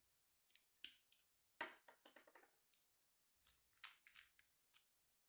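Faint, scattered clicks and taps, about ten of them, from small amber glass essential-oil bottles and plastic dropper caps being handled and set down on a table.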